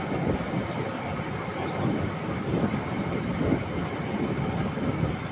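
A moving passenger train running on its rails: a steady, noisy rumble of wheels and carriage.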